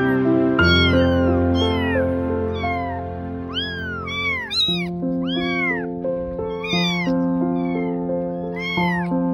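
Young kittens mewing repeatedly, short high cries that rise and fall, about one or two a second, over background music of held notes.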